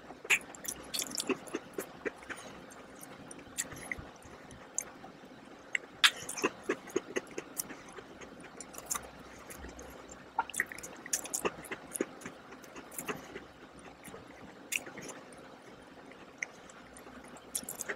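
A person chewing a crisp Christmas cookie close to the microphone: irregular sharp crunches and mouth clicks in clusters, with quieter stretches between.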